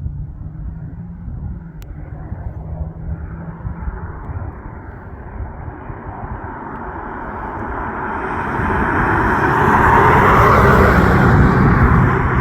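BMW X5 M's twin-turbo V8 running through a valved titanium aftermarket exhaust, rumbling at first and then building over several seconds into a loud full-throttle pull, loudest near the end.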